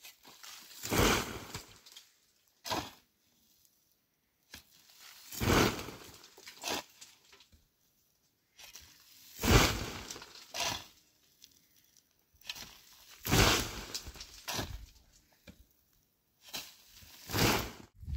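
Water thrown by hand onto dry, dusty ground, splashing in five bursts about four seconds apart.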